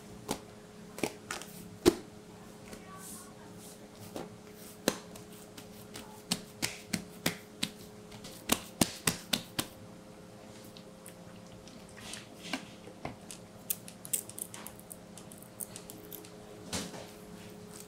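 Hands slapping, patting and pressing a large sheet of bread dough on a silicone mat: a run of short, sharp slaps and taps, at times about three a second, the loudest about two seconds in. A steady low hum runs underneath.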